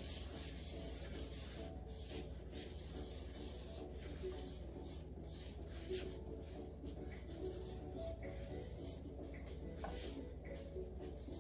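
A brush spreading oil over a pan, a soft rubbing, over faint background music and a steady low hum.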